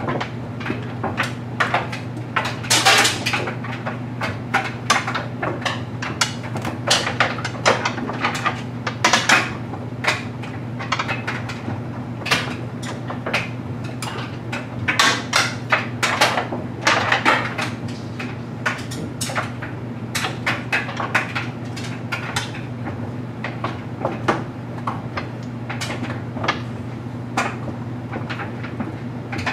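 LG Mega Capacity clothes dryer running with a steady hum as its drum tumbles a load of stuffed animals, which knock and clatter irregularly against the drum and glass door.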